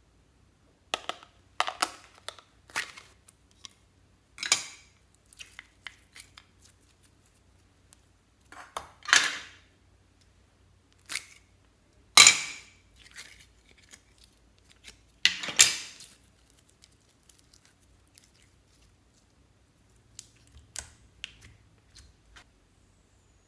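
Hard plastic slime containers being handled and opened: a string of short clicks, snaps and crackles, the loudest two near the middle, with small sticky slime sounds between.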